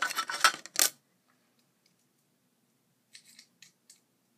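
Lock pick scraping and clicking inside an old lock being picked: a dense run of sharp metallic clicks in the first second, then a few faint clicks about three seconds in.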